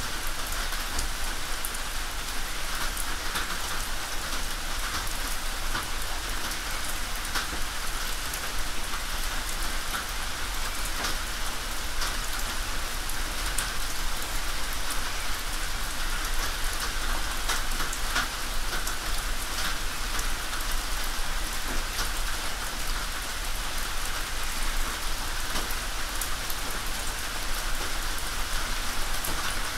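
Steady rain on a tin roof: an even hiss of rainfall with many separate drops tapping sharply on the metal at irregular moments.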